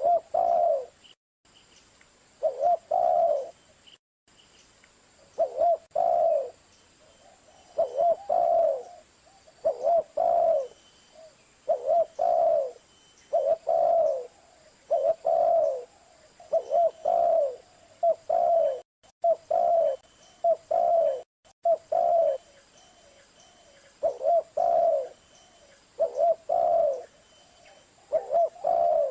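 Spotted dove (tekukur) cooing: a short, low coo phrase repeated over and over, one about every two seconds.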